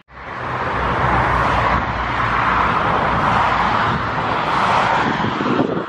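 Boeing 767's twin turbofan jet engines running on the runway: a steady jet noise with a low rumble underneath that eases after the first few seconds.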